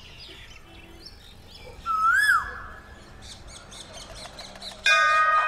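Small birds chirping faintly in the background. About two seconds in comes one loud, short pitched sound that rises and then falls, like a whistle. Near the end a loud chord of music comes in.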